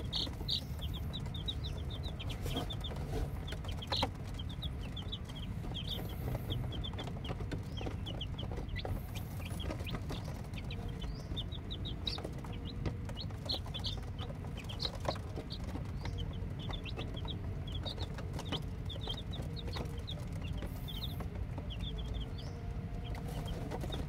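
A brood of newly hatched chicks peeping nonstop: many short, high chirps, each sliding down in pitch, overlapping in a busy chorus over a steady low rumble, with a few sharp clicks.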